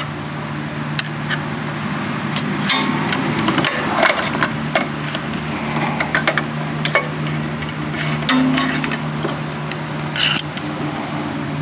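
Scattered clicks, taps and clinks of hand tools and small metal engine parts being handled, irregular and uneven in spacing, over a steady background hum.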